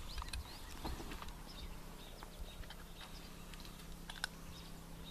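Small birds chirping with quick, short calls, over a low steady hum, with a few small clicks and knocks, one sharper click about four seconds in.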